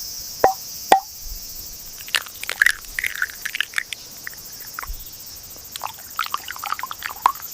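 Insects droning steadily in a high pitch, with many short bird chirps scattered over it and a couple of sharp clicks near the start.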